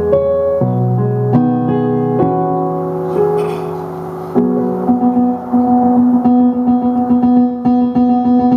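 Solo piano playing a slow run of chords that change about once a second. About four seconds in it moves to a busier passage of quick repeated notes over a held harmony.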